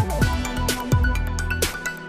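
Electronic background music with a steady beat of punchy drum hits and falling-pitch bass drops.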